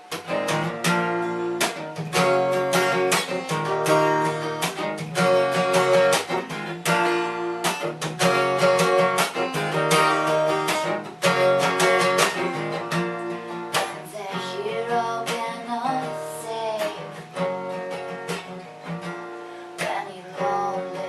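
Acoustic guitar strumming chords in a steady rhythm, softer in the second half.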